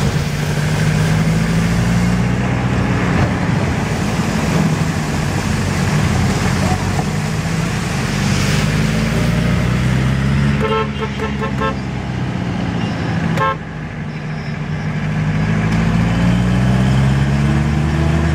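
Car engine heard from inside the cabin while driving on a wet road, its pitch rising and falling as the car speeds up and slows, over a steady hiss of tyres on the wet road. About eleven seconds in a car horn toots in a quick series of short beeps, with one more beep a couple of seconds later.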